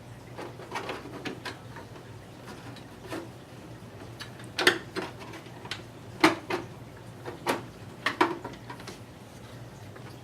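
Irregular clicks and light knocks of RC car parts being handled and fitted, with a pull start extender going onto the engine; the louder knocks fall about four and a half, six, seven and a half and eight seconds in.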